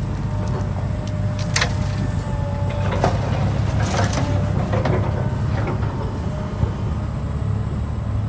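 Heavy construction machine's engine running with a steady low rumble, with several sharp metallic clanks in the first half.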